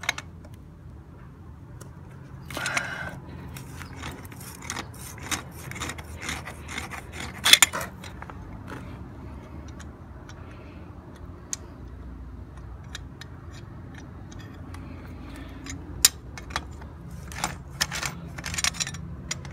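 Channel-lock pliers working the metal union nut of a water pressure regulator: scattered sharp metal clicks, clinks and scrapes as the pliers' jaws are reset and the nut is turned loose. The loudest clink comes about seven and a half seconds in.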